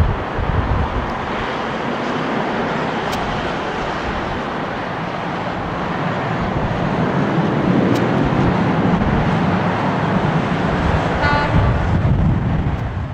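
Jet airliner engines making a steady roar with a deep rumble that swells slightly in the second half. A short horn-like toot sounds near the end.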